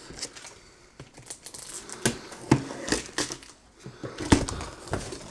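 Large cardboard box being cut open at the top: a blade working through the packing tape and the flaps being handled, giving a run of irregular sharp clicks and taps, the loudest about four seconds in.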